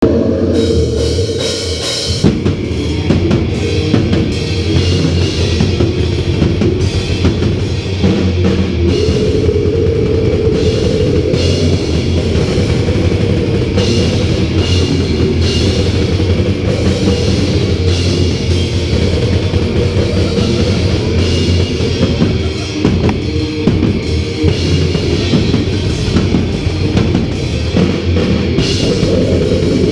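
Heavy metal band playing live at full volume: distorted electric guitars over drums and cymbals, with no break in the music.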